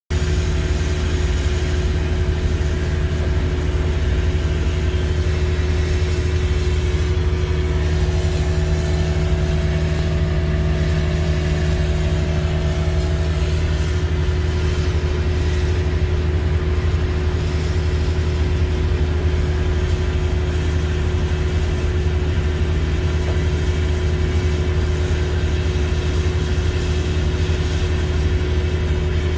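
Liebherr LB35 drilling rig's diesel engine and hydraulics running steadily while the drill bores a hole, heard from inside the operator's cab: an unbroken deep drone with a constant hum over it.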